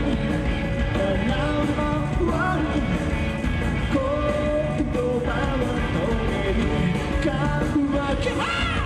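Live rock band playing on stage: a male lead singer's voice over electric guitar and a full band.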